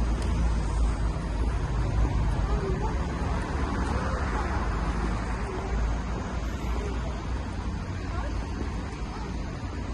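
City street traffic noise, a steady low rumble with a brief swell about four seconds in, and faint voices in the background.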